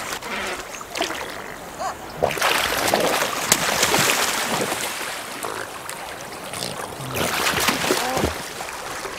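Cormorants splashing in river water, diving and beating their wings on the surface, with a continuous wash of splashes and sharper splashes now and then.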